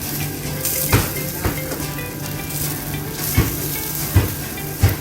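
Chicken barbecue sizzling steadily as it grills, with a handful of sharp pops or taps about once a second.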